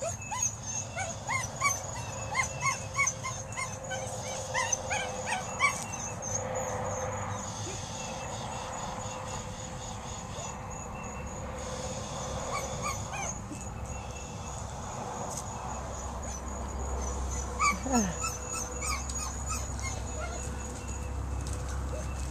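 A dog giving short, high-pitched barks in quick runs, most of them in the first six seconds, with a few more near the end.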